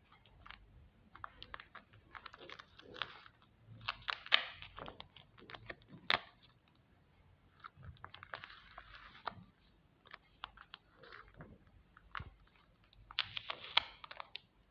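Crinkling and rustling from hands working craft materials, in three short bursts full of sharp clicks, with quieter gaps between them.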